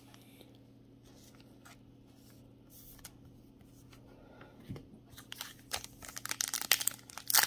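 A faint steady low hum. From about halfway, the crinkling and crackling of a foil trading-card pack wrapper being handled, growing louder toward the end.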